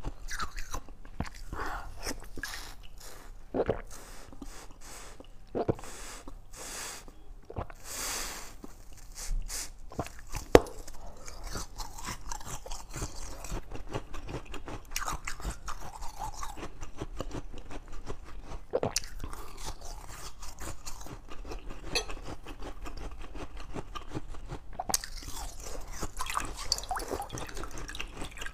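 Close-miked crunching and chewing of slushy ice frozen in a plastic water bottle, sharp bites and crackles at irregular intervals, with one especially loud crack about ten seconds in.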